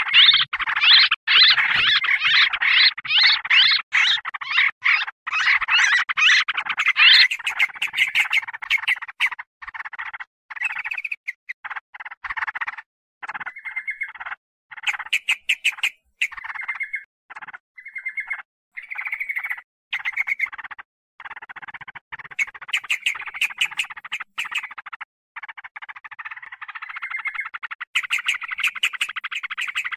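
Yellow-vented bulbuls (trucukan) chattering noisily, a lure call for trapping. It starts as a dense run of rapid, harsh notes, breaks about a quarter of the way in into short bursts with gaps between them, and thickens again near the end.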